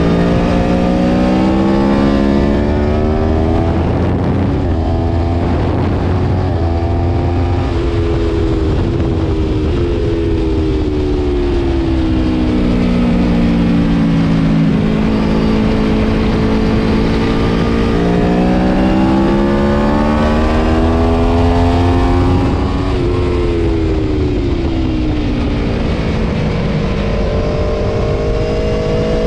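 Aprilia Tuono V4 Factory's V4 engine at racing revs, its pitch climbing in steps through upshifts and falling away twice in long sweeps as the bike slows for corners. A steady low rush of wind on the bike-mounted microphone runs under it.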